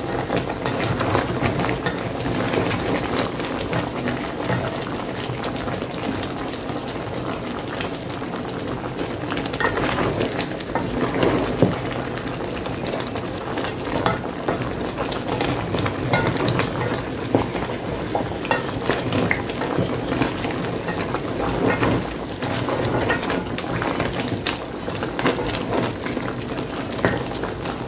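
Pieces of cow foot bubbling in their cooking water in an aluminium pot, stirred with a wooden spoon, with scattered light knocks of the spoon against the pot.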